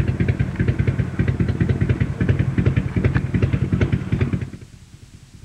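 Motorcycle engine idling with a quick, even beat, fading out near the end.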